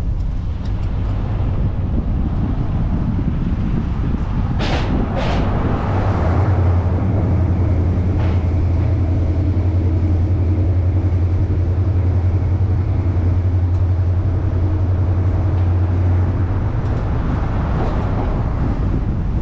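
Truck driving, heard from the outside with steady road and wind noise. Two sharp thumps come about five seconds in. A strong steady low hum then holds for about ten seconds while the truck crosses the covered bridge.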